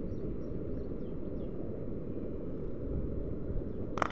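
Steady low rumble of wind buffeting the microphone, with faint high bird chirps in the first second and a half and one sharp click near the end.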